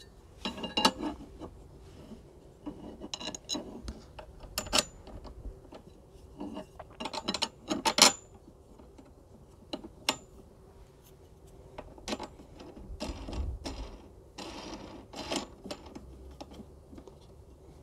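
Scattered clicks and knocks of plastic fastening nuts and metal handle tubes being fitted together on a lawn scarifier's handle, the sharpest click about eight seconds in.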